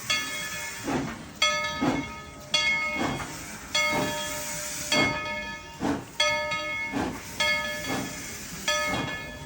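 A steam locomotive's bell ringing steadily, about one strike every second or so, each strike ringing out and fading, over hissing steam from the engine.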